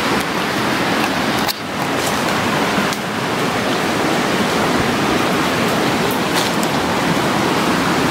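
Steady rush of falling water from a waterfall. There is a brief dip about a second and a half in.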